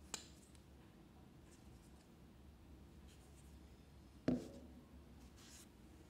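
Faint handling of a folding knife: a sharp click right at the start as the blade is closed, then a louder knock about four seconds in, with light rubbing of fingers on the handle in between.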